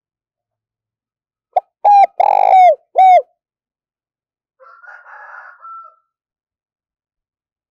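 Spotted dove cooing close up: one phrase of four notes, the third the longest, each dropping in pitch at its end. A much fainter, hoarse sound follows about a second and a half later.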